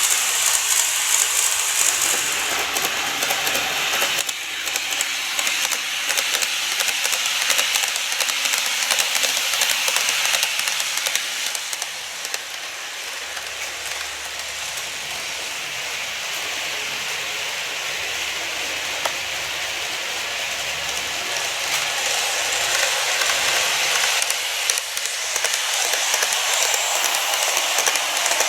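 N-gauge model train running on track, a steady rattling noise of wheels on rail and motor. It grows fainter through the middle and louder again near the end as the train moves away and comes back round.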